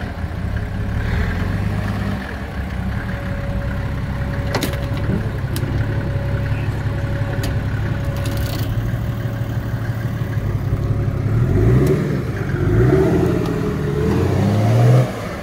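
Off-road 4x4's engine pulling at low revs while crawling through an obstacle, with a few sharp clicks in the middle. Near the end it is revved in several rising surges, and the sound drops suddenly just before the end.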